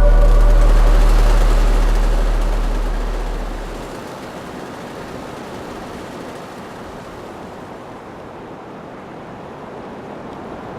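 The music's last deep bass note dies away over the first few seconds. A steady, even outdoor roar of street ambience then carries on unchanged.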